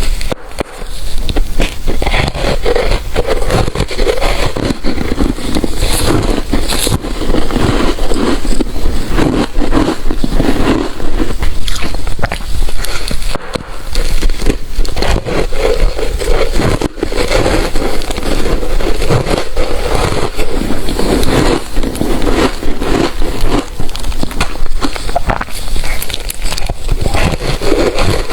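Ice being bitten and chewed close to the microphone: a dense, loud run of crunching and crackling with only brief pauses.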